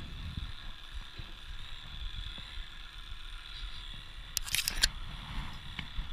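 Scuffling and knocking as a calf is held against a metal pen gate, with a quick rattle of sharp metallic clicks about four and a half seconds in.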